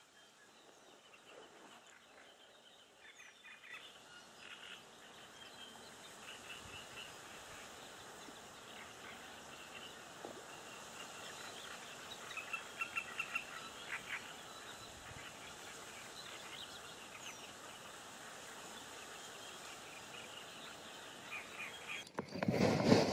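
Faint lakeside ambience with small birds chirping in short repeated bursts over a light even hiss of wind. Near the end a loud rustling handling noise breaks in as the camera is moved.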